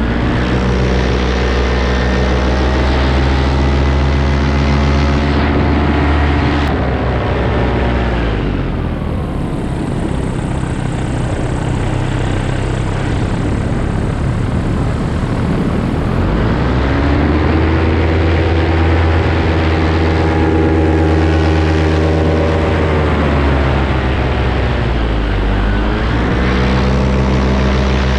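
Paramotor engine and propeller running in flight. The engine pitch falls away about eight seconds in, leaving mostly a rushing noise, then climbs back around seventeen seconds, with another short dip near twenty-five seconds: the throttle being eased off and opened again.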